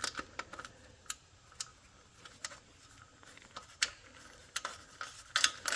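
Irregular light clicks and taps of metal parts being handled as a screw is worked into a radiator mounting hole, with a quick run of clicks near the end.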